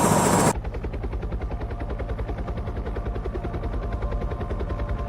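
Helicopter rotor blades beating in a fast, even chop. A loud rush of noise cuts off abruptly about half a second in.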